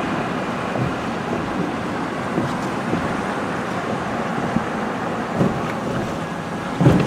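Steady road and wind noise inside a moving car, its tyres hissing on a wet road, with a low bump near the end.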